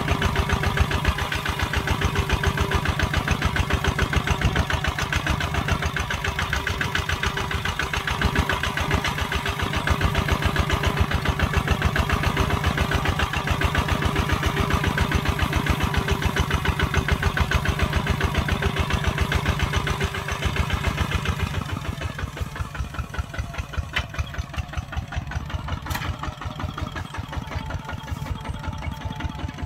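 Kubota ZT140 single-cylinder diesel engine running steadily on a plowing tractor, a rapid even chugging. About two-thirds of the way through it drops noticeably quieter.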